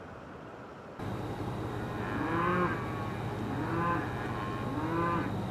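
Repeated animal calls, four short ones, each rising then falling in pitch, about a second and a half apart, over a steady low hum that starts abruptly about a second in.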